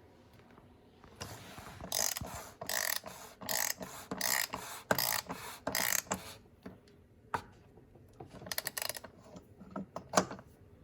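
Ratchet wrench clicking in a run of about eight strokes as it tightens the oil filter housing cap on an Audi Q7 3.0T engine, followed by a few shorter clicks near the end. The cap is tightened hard enough that it is judged over-tight.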